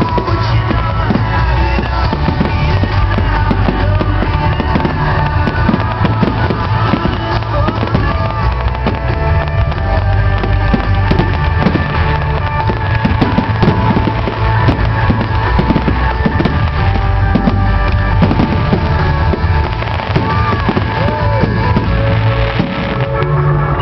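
Fireworks display: a continuous run of firework bangs and crackles, mixed with loud music with a heavy bass.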